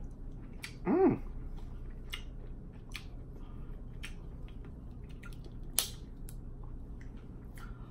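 Scattered small cracks and clicks of snow crab leg shells being broken apart and the meat picked out by hand, mixed with chewing sounds, with one sharper snap about six seconds in. About a second in comes a short hummed "mm", the loudest sound.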